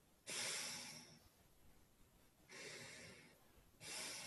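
Faint breathing through the nose by a woman holding her cheeks puffed full of air, the first step of practising circular breathing: three soft nasal breaths about a second and a half apart.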